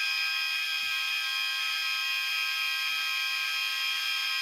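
Many fire alarm horns sounding together on continuous, a dense wall of steady tones layered over one another, insanely loud.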